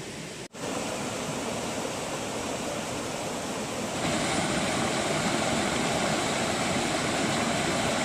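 Stream water rushing over rocks: a steady rush of noise, with a brief cut-out about half a second in, and louder and fuller from about four seconds in.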